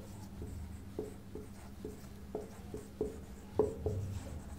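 Writing by hand with a marker on a white board: a string of short taps and scratches, two or three a second, the loudest about three and a half seconds in.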